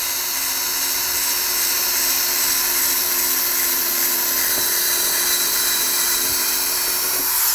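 Small cordless drill running steadily at high speed with a 1/16-inch bit, drilling a pilot hole into plastic. It winds down and stops near the end.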